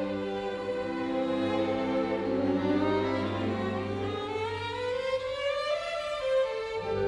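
Background music led by bowed strings, with a long rising slide in the melody midway through.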